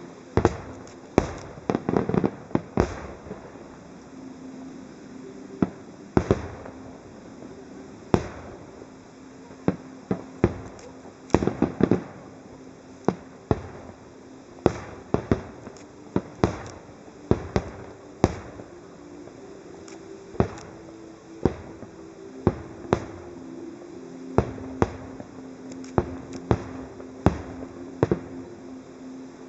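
Aerial firework shells bursting one after another, sharp bangs at irregular intervals, often one or two a second and sometimes in quick clusters.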